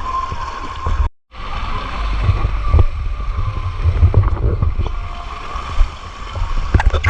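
Water and wind noise buffeting the microphone of a camera on a water-park tube ride, a loud uneven rumble with scattered knocks and splashes. The sound cuts out completely for a moment about a second in.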